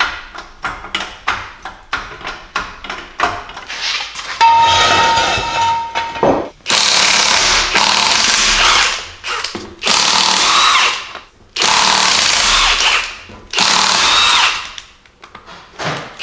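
A run of quick clicks for about the first four seconds. Then a Milwaukee cordless impact wrench hammers in five loud bursts, undoing the wheel's lug nuts.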